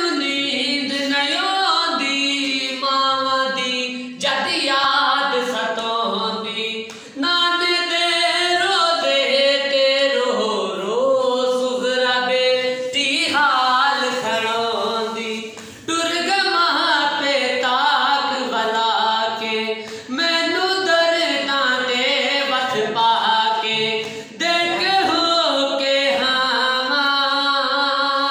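A man singing a nauha, a Shia lament, unaccompanied, in long wavering melodic phrases with short pauses for breath between lines.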